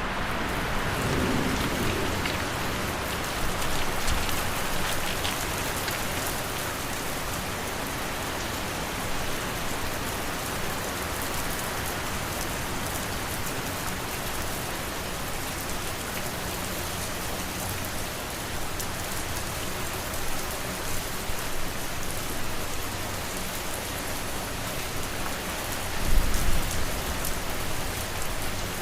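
Steady rain falling, an even hiss of drops on a surface, with a brief low rumble near the end.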